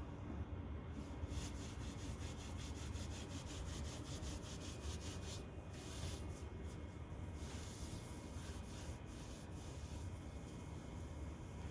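Hands rubbing over skin and clothing. A quick, even run of back-and-forth strokes, about six a second, lasts for a few seconds, then a few longer, slower rubs follow over a low steady hum.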